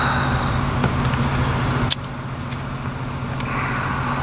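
Vehicle engine idling with a steady low hum, under a hiss that cuts off with a click about two seconds in and comes back faintly near the end.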